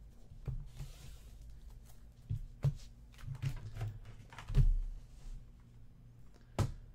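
Hands clearing a desk: scattered knocks, taps and light rubbing as things are moved about, the loudest thump about four and a half seconds in. A sharp knock near the end as a computer keyboard is pulled back into place.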